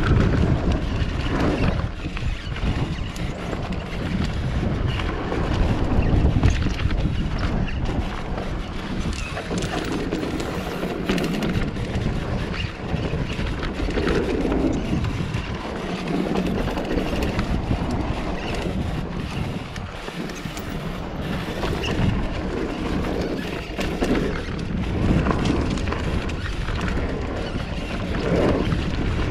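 Wind buffeting the microphone of a mountain bike rider on the move, with the tyres rumbling over a dirt trail and the bike clattering over many small bumps.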